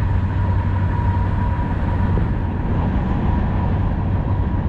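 Freight train passing close by: a steady, loud rumble of the rolling cars.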